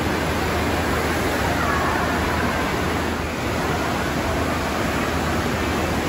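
Steady rushing of water from a FlowRider surf simulator's sheet wave pouring up its padded ramp, with a low hum underneath.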